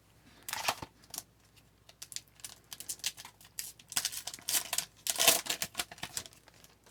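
Hockey card pack being handled: a series of short crinkles and clicks of the foil pack wrapper and card stock as it is opened and the cards are drawn out, loudest about five seconds in.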